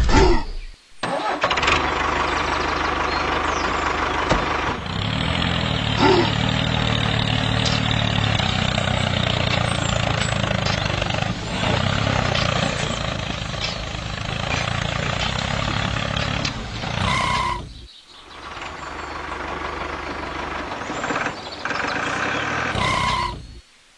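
Tractor engine running steadily. It cuts out about three-quarters of the way through, starts again shortly after, and stops just before the end.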